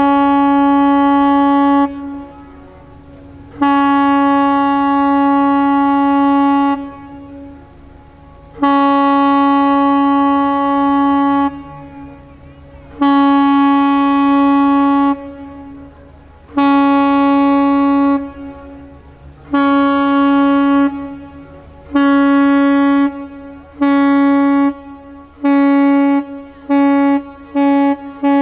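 The ship's horn of the river cruise ship «Afanasiy Nikitin» sounds a farewell signal on departure. It is one steady, rich tone given as a series of blasts, long at first and then shorter and quicker, ending in rapid short toots.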